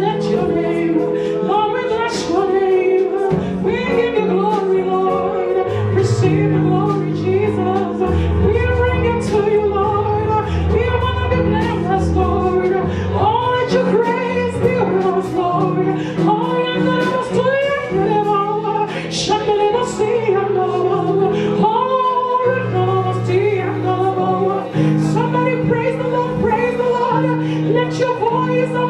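Gospel worship music: singing over steady keyboard and bass chords.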